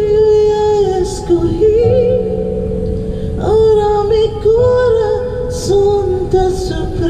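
A woman singing a slow song with long held notes that slide between pitches, over backing music.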